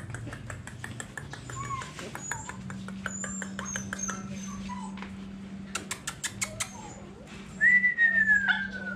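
A person calling puppies: clicking sounds, with a quick run of about seven clicks a little past the middle, among small short squeaks. About three-quarters of the way in comes a long whistle that slides down in pitch, the loudest sound. A faint steady hum runs underneath.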